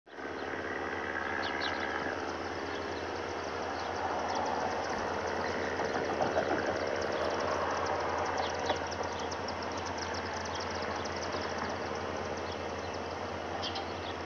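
Steady rumble of a diesel train engine running out of view, over a constant low hum.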